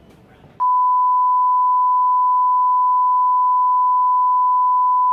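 Colour-bars test tone: one loud, steady, unbroken beep at a single pitch, starting about half a second in.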